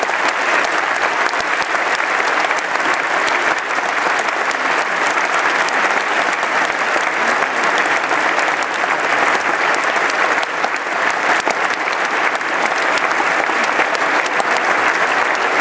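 A large crowd clapping together in sustained, steady applause.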